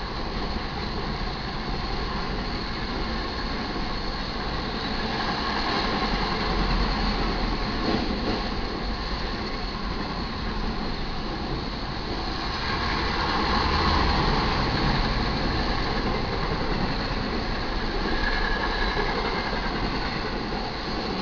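BNSF intermodal freight train rolling past: a steady rumble and clatter of steel wheels on rail that swells louder twice.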